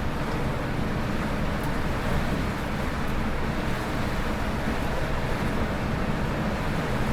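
Steady cabin noise of a Scania K410 coach under way: the low hum of its six-cylinder diesel under a constant rush of tyre and road noise.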